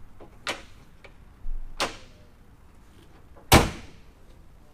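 Three sharp bangs about a second apart, the third, about three and a half seconds in, much the loudest.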